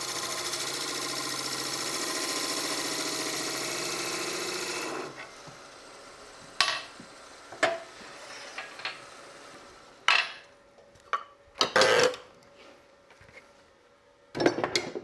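A turning tool cutting the spinning ash blank on a wood lathe: a steady, loud scraping of the cut that stops abruptly about five seconds in. After that come several short knocks and clatters of metal tools being handled and set down.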